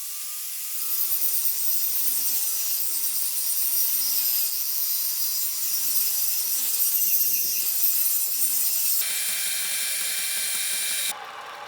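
Workshop power tool running, with a strong high hiss and a motor tone whose pitch wavers up and down. The sound changes abruptly twice near the end, as separate short clips cut together.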